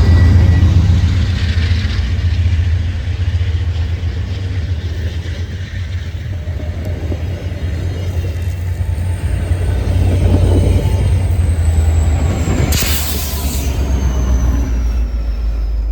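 VIA Rail passenger train pulling out behind a GE P42 diesel locomotive, the engine and rolling wheels giving a steady low rumble. A short burst of hiss comes about thirteen seconds in, and a faint high tone glides slowly downward through the second half.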